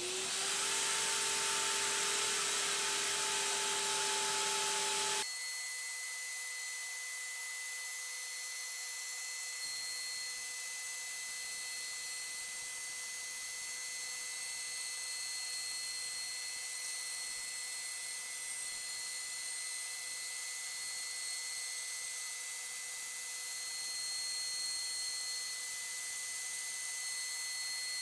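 The router spindle of a home-built CNC router spins up with a rising whine, then runs steadily. About five seconds in the sound changes abruptly to a sped-up time-lapse track of the machine milling, dominated by a steady, high, unpleasant whistle.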